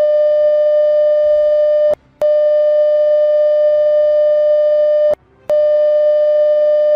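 Emergency alert attention tone: a loud, steady electronic tone of one pitch, held for about three seconds at a time and broken twice by short gaps, at about two seconds in and again about five seconds in.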